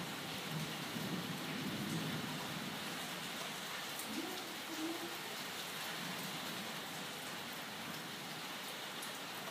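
Steady rain falling in a thunderstorm, an even hiss with a few scattered drop ticks.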